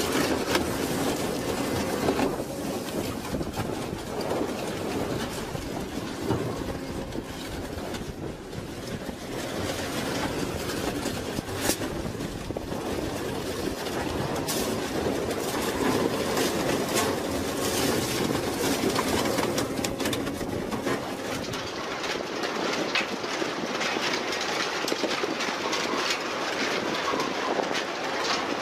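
Industrial shredder's toothed shafts tearing through a van's sheet-metal body, a steady grinding crunch of metal broken by many sharp cracks and snaps. About twenty seconds in the sound shifts to a lighter, thinner clatter of shredded metal scrap tumbling off a conveyor.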